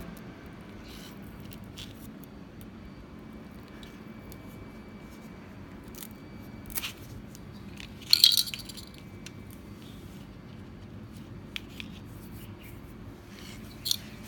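Bananas being handled on a tabletop: scattered small clicks and rustles, with a louder crackling rustle about eight seconds in, over a steady low room hum.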